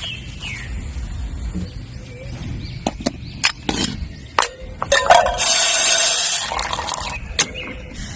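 Camp cookware clicking and knocking a few times, then water poured into a pot for about a second, with a rushing splash.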